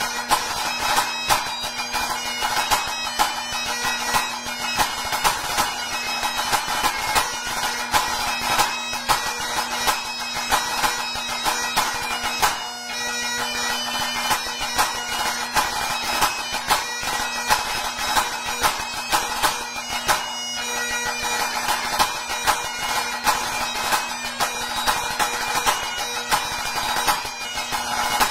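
Pipe-band snare drum played solo in fast, dense rudimental patterns of sharp strokes, over highland bagpipe accompaniment with steady drones under the chanter melody.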